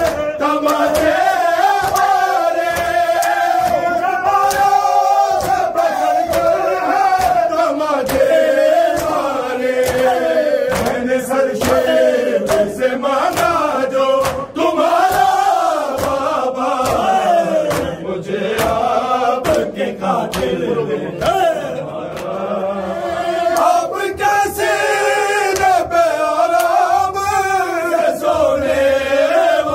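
A group of men chanting an Urdu noha (a Muharram lament) in unison. Repeated sharp slaps of open hands striking chests (matam) keep the beat.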